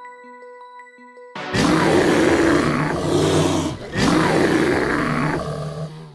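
Big-animal roar sound effect: two long roars back to back, starting suddenly after the last notes of music die away.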